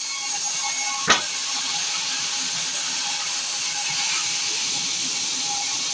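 Sawmill saw cutting through a large acacia log: a steady hissing cut, with one sharp knock about a second in.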